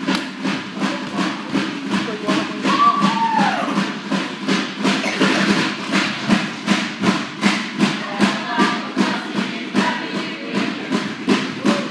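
A group of voices singing together over a steady, fast beat of sharp strikes, about three a second, with a few higher calls over the top, typical of a seated group performance keeping time with claps.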